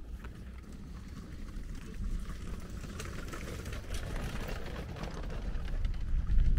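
Wind buffeting the microphone: an uneven low rumble that swells near the end.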